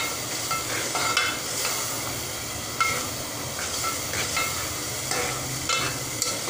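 Metal spoon stirring ridge gourd curry in a stainless steel pot, scraping and clinking against the pot every second or so, over a steady sizzle from the simmering vegetables.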